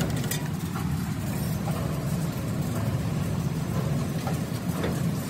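Steady low mechanical hum of running machinery, with a few faint clicks.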